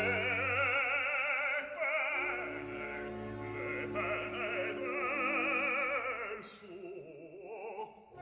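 Operatic singing with a wide vibrato over orchestral accompaniment. Near the end the voice drops out and the orchestra carries on quietly.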